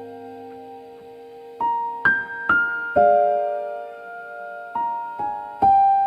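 Slow, gentle piano music: single notes and small chords struck about every half second to a second, each left ringing and fading.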